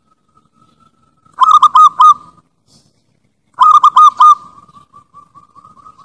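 Zebra dove (perkutut Bangkok) cooing. It gives two loud phrases of about four short, hooked coos each, about two seconds apart, the lure call used to draw in wild perkutut. A soft, rapid purring trill runs between and after them.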